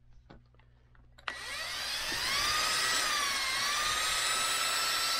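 Ridgid drill spinning a paddle mixer through a cup of epoxy resin, mixing in aluminum pigment. It starts suddenly about a second in, its whine rising as it comes up to speed, dipping briefly in pitch midway, then running steadily.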